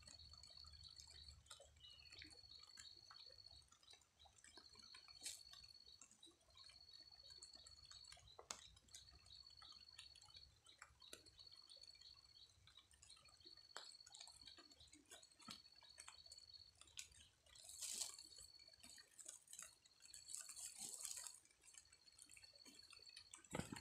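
Faint outdoor ambience in light rain: scattered small drips and taps, with a thin, high, even trill that repeats about every second and a half. A couple of brief hissy rustles come near the end.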